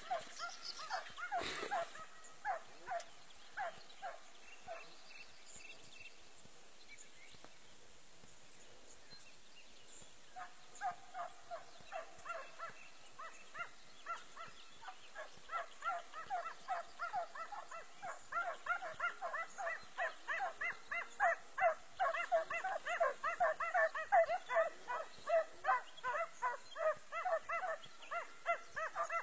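Hunting hounds giving tongue in quick, repeated high yelps, the baying of dogs on a hare's scent trail. A run of yelps at the start, a brief knock, and a pause of several seconds; then the yelping returns about ten seconds in and grows louder and denser.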